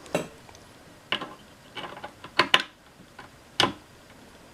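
A screwdriver tightening the bolt of a cabinet door knob: a handful of sharp, irregular clicks and knocks as the tool works the bolt head and the knob shifts against the door.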